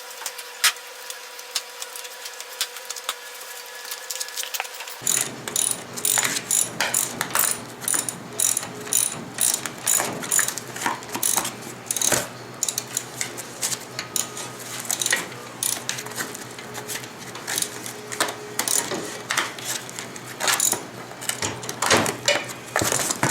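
Hand socket ratchet clicking in irregular runs of sharp clicks while nuts are turned on a VW Thing's front suspension, sparse at first and denser from about five seconds in.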